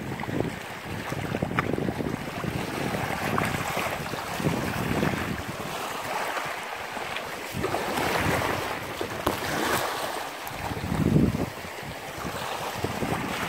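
Wind buffeting the microphone over small sea waves washing at the shore, the noise rising and falling, with a stronger low gust near the end.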